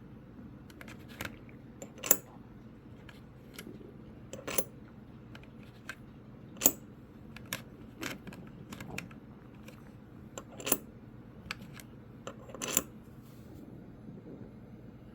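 Loaded cartridges clicking and clinking as they are set into and lifted out of the holes of an Armanov multi-hole ammo checker (case gauge): a sharp metallic click every couple of seconds, with lighter ticks between.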